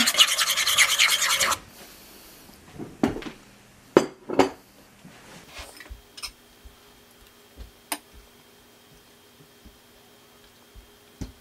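Metal spoon stirring oats and almond milk in a bowl: a rapid, loud scraping for about the first second and a half. After it, only a few light clinks and taps.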